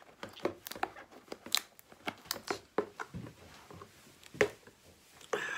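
Clear hard-plastic case being opened and handled: a run of irregular sharp plastic clicks and crackles, with one louder snap about four and a half seconds in.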